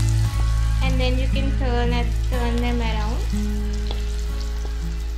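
Onion slices in rice-flour and gram-flour batter deep-frying in hot oil, a steady sizzle, with a spatula stirring through them. Background music plays over it.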